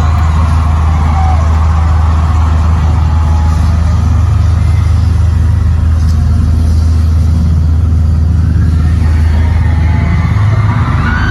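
Loud, steady low engine-like drone played through a concert sound system, with a haze of crowd noise above it.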